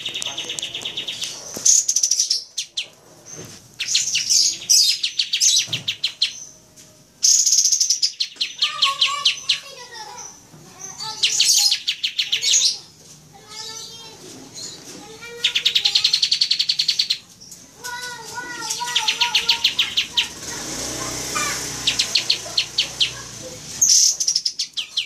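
Kapas tembak (olive-winged bulbul) song in a back-and-forth exchange: bursts of very rapid, high trills alternating with lower, bubbly warbled phrases, with short pauses between them.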